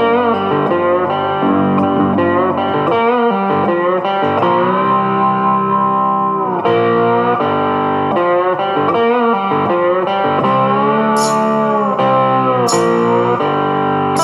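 Background music led by a guitar playing long, bending notes, with two sharp hits near the end.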